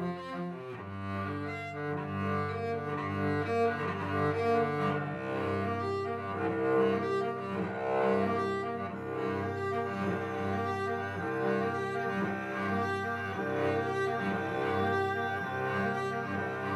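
Cello being bowed, playing a continuous passage of notes with sustained low tones beneath.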